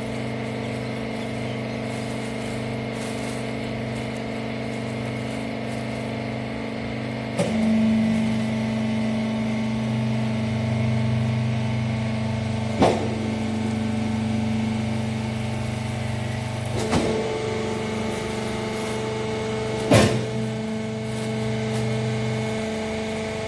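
Hydraulic rag baler running: its motor and pump hum steadily, the note shifting about seven seconds in and again later as the press works, with four sharp clunks along the way.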